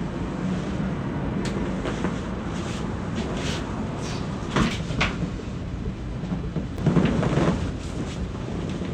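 Spinal joints cracking during a chiropractic back adjustment: a few short sharp pops, two close together about halfway through, and a louder burst near the end, over a steady low hum.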